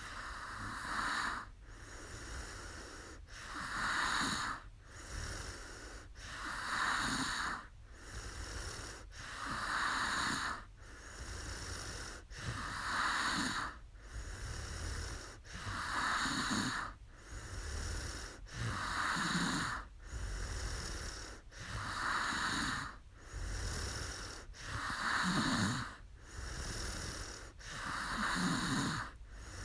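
A woman snoring in her sleep: a regular breath about every three seconds, each a raspy snore with a breathy rush of air.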